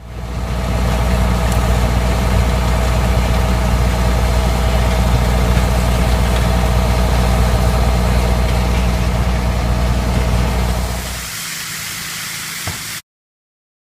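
Heavy farm machinery engine running steadily with a low, even hum. About eleven seconds in the engine sound drops away, leaving a quieter hiss, and then the sound cuts off abruptly.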